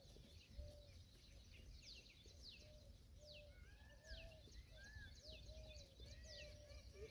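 Faint wild birds calling: many quick, high, downward-sweeping whistles and a repeated lower arched note, over a steady low rumble.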